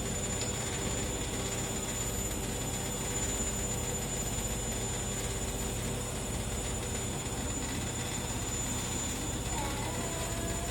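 Washing machine running with a steady, even drone and hum, with a faint wavering whistle near the end.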